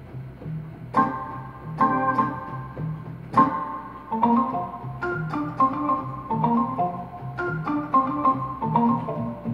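Electronic keyboard played with an organ-like tone: held chords struck about once a second at first, then moving into faster-changing notes about four seconds in, over a steady low bass line.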